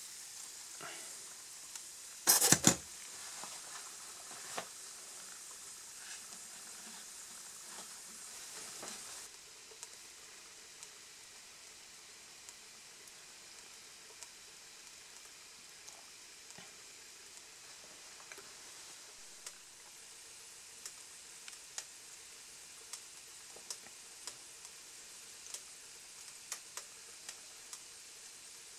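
Liquid nitrogen boiling in a glass dish around a YBCO bulk superconductor: a sizzling hiss that drops off abruptly about nine seconds in, leaving a fainter hiss with sparse light ticks. Two sharp knocks, the loudest sounds, come a little over two seconds in.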